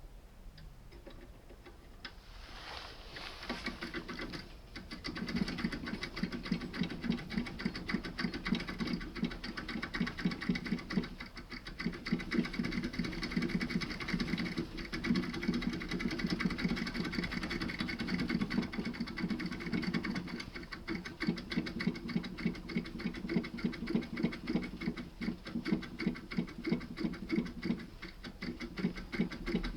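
Foil impressioning tool, wrapped in 0.7 mm sheet foil, rapidly jiggled inside an Iseo R7 cylinder lock: a fast, continuous rattle of small metal clicks as the foil takes the pin impressions. It starts about three seconds in and grows louder a couple of seconds later.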